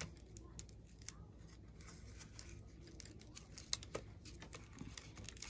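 Faint paper crinkling and light irregular clicks as gloved hands smooth glue-soaked paper scraps flat onto cardboard.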